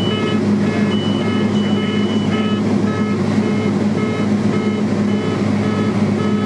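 Cessna Silver Eagle 450's turboprop engine droning steadily, heard inside the cabin. Over it an electronic cockpit warning beeps repeatedly, roughly twice a second.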